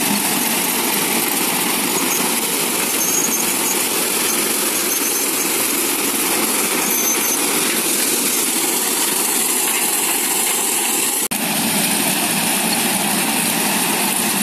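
Sonalika tractor engine and the Panesar mini combine harvester it drives, running steadily at working speed while harvesting: a dense, even machine noise. The sound drops out for an instant about eleven seconds in.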